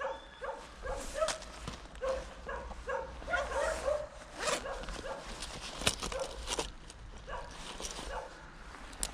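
A run of short, repeated animal calls, often two or three a second, over sharp clicks and rustling from hand tools and a cloth bag being handled.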